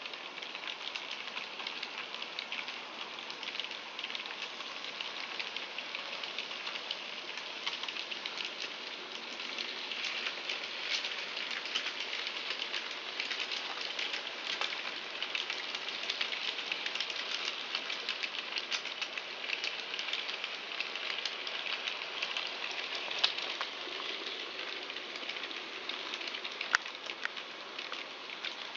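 N gauge model diesel locomotive and freight cars running on sectional track: a steady, dense, fine clicking and rattling of the small wheels over the rail joints, with the faint hum of the model's motor. A couple of sharper clicks come near the end.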